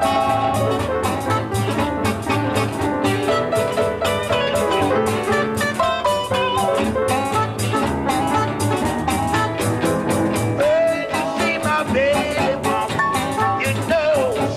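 Blues band playing, with guitar over a steady drum beat. Several notes bend up and down over the last few seconds.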